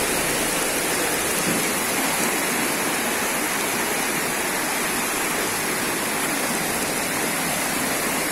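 Muddy floodwater rushing down a street in heavy rain: a steady, even sound of fast-flowing water.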